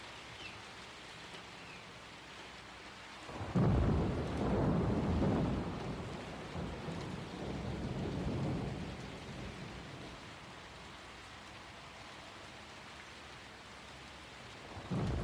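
Steady rain hiss, with a long low rumble of thunder that breaks sharply about three and a half seconds in, rolls on in several swells and fades over about six seconds; a second rumble starts near the end.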